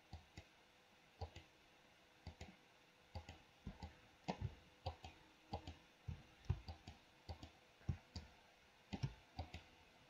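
Faint, irregular clicking of a computer mouse and keyboard as the software is worked: short sharp clicks, two or three a second, some in quick pairs.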